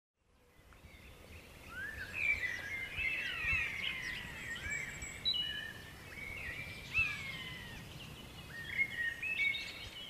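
Songbirds singing: whistled phrases and chirps, many sliding up or down in pitch and overlapping, over a low steady rumble. It fades in from silence within the first second.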